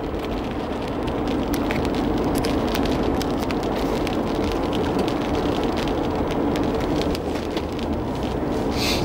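Rain pattering on a car's roof and windscreen, heard from inside the cabin as a steady crackle of drops over a low rumble.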